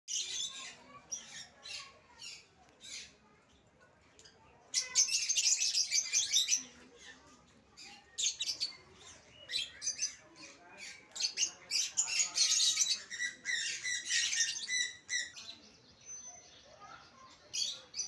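A flock of lovebirds chattering with rapid, high-pitched chirps and squawks in bursts, loudest about five to six seconds in and again from about twelve to fifteen seconds.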